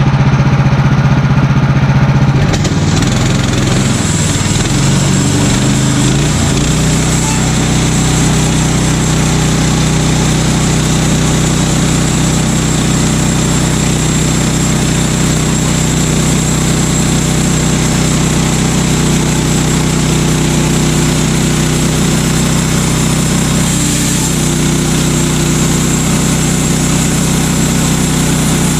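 Gas engine of a Woodland Mills portable bandsaw mill, just fired up after a blade change, shifting in pitch for the first few seconds and then running steadily.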